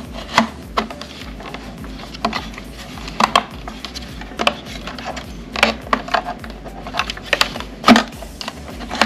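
Irregular sharp clicks and knocks of hard plastic as a humidifier chamber is pushed and seated onto the heating plate of an AIRVO 3 high-flow unit, with the loudest knock near the end.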